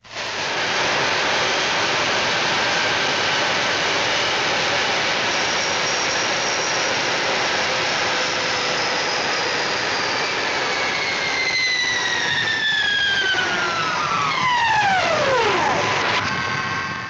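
Cartoon sound effect of a steady jet-like roar. Over its last several seconds a whistle falls steeply in pitch, like a dive or a fall, and then the sound cuts off.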